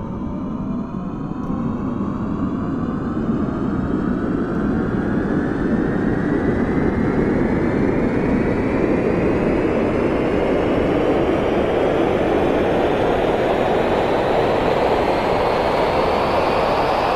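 Aeroplane engines spooling up for takeoff: a steady rush of engine noise that grows louder, with a whine rising steadily in pitch.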